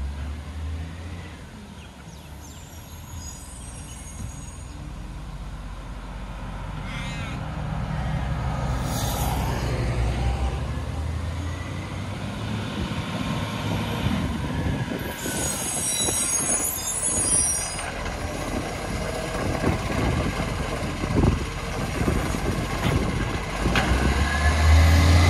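Diesel engine of an Iveco side-loader garbage truck, growing louder as the truck approaches, with a hiss of air brakes about two-thirds of the way through. Near the end the engine hum rises and there are clunks as the hydraulic side arm lifts a wheelie bin.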